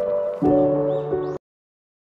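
Background music with held, soft chords, which cuts off abruptly about a second and a half in, leaving silence.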